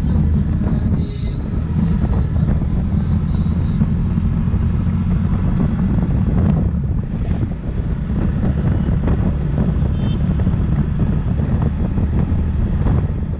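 Motorcycle engine running steadily at road speed, with wind buffeting the microphone.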